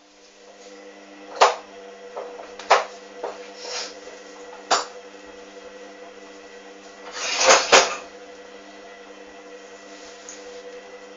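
Hoover Dynamic washing machine in its main wash: the drum motor starts up with a steady hum as the drum turns. Three sharp knocks come in the first five seconds, and a louder swish of sudsy water and laundry about seven seconds in.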